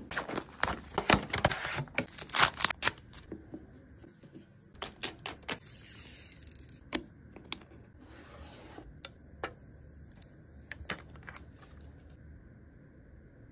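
Plastic packaging of a screen protector kit and its clear plastic applicator frame being handled: a quick run of crinkles and clicks, then scattered clicks and two short stretches of rustling, dying down near the end.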